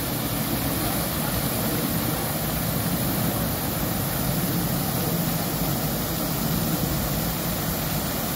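Steady rush of a fountain's water jets splashing into its pool, with a low rumble beneath.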